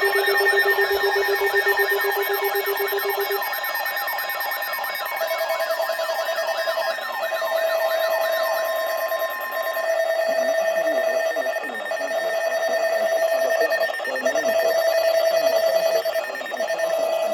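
Several emergency alert tones sounding together: steady electronic tones layered with warbling, siren-like sweeps. From about five seconds in, a tone repeats in blocks of about two seconds, and the sweeps fade out around the middle.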